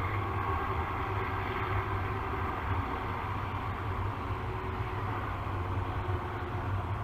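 Steady low hum with a hiss above it, unbroken throughout, like distant engine or traffic rumble.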